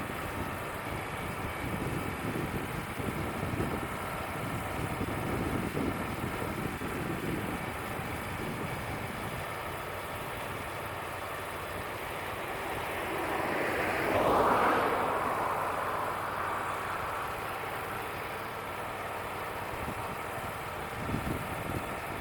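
Wood-Mizer LT35 portable sawmill running steadily, its engine droning, with a louder swell of noise for a few seconds about two-thirds of the way through.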